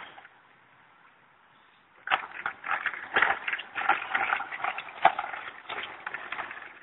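Baby walker's wheels rattling and clattering over concrete as a toddler pushes it along, starting about two seconds in as a dense run of irregular clicks.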